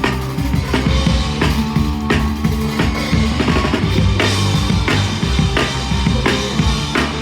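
Live rock band playing loud, with a drum kit hitting steady kick and snare beats over held bass and guitar notes.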